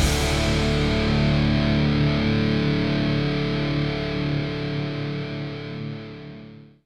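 Outro music: a distorted electric guitar chord rings out and fades away to silence near the end.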